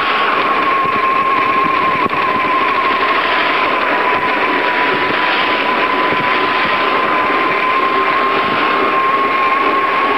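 Bicycle riding noise picked up by a camera mounted low beside the wheel: tyres rolling on asphalt and wind rushing over the microphone, with a steady high whine.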